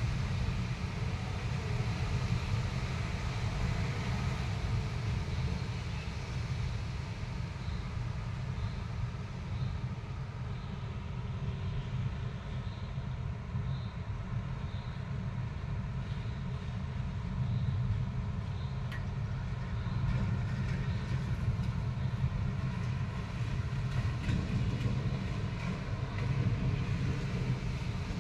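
Continuous low rumble of thunder during a thunderstorm, going on without separate claps; the speaker finds such constant rumbling unusual.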